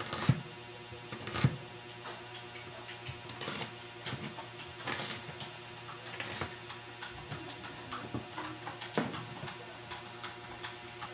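Kitchen knife slicing red onion on a plastic cutting board: irregular knocks of the blade hitting the board, a few louder chops among lighter taps.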